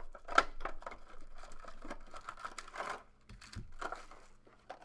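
Plastic shrink-wrap being torn and crinkled off a sealed box of trading cards. It makes irregular crackles, with a sharp snap about half a second in, and grows quieter after about three seconds.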